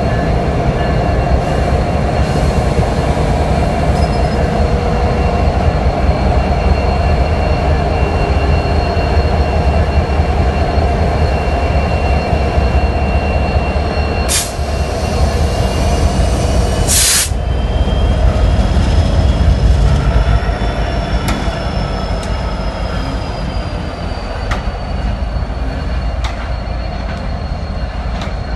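Heavy freight train rolling past: a steady low rumble of the cars with thin, high wheel-squeal tones that waver in pitch over the second half. There are two brief loud bursts of noise about halfway through.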